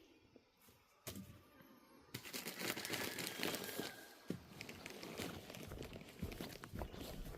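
Plastic-wrapped bag of wood shavings for animal bedding being handled, its plastic crinkling and rustling in a dense run of crackles that starts about two seconds in, after a single click.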